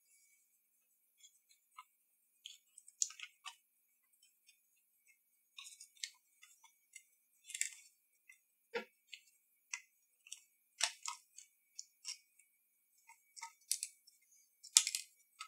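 Light plastic clicks and taps from handling the cassette mechanism and yellow plastic case of a Sony WM-F63 Sports Walkman as the mechanism is worked loose and lifted out. The clicks come sparse and irregular, with one duller knock about nine seconds in.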